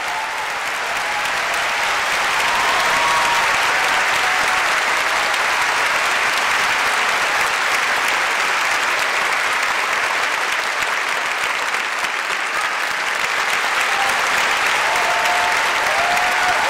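Large theatre audience applauding, the clapping swelling about two seconds in and then holding steady.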